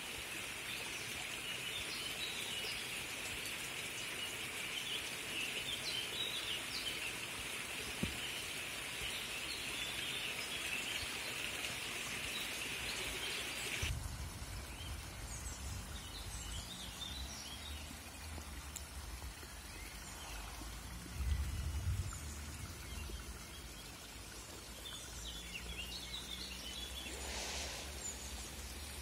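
Storm runoff from a flash flood rushing steadily through a small creek channel, with birds chirping. About halfway through the rush of water drops away, and low rumbling with chirping birds takes over.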